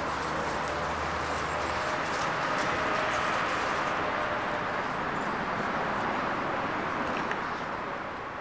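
Steady outdoor background noise, an even hiss strongest in the middle pitches with a few faint steady tones and a low hum that drops out about two seconds in, fading out near the end.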